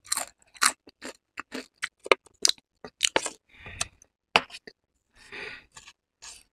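Close-miked eating sounds of noodles: a quick run of wet mouth clicks and smacks, with a fork scraping the plate and two short rushing, slurp-like noises about three and a half and five seconds in.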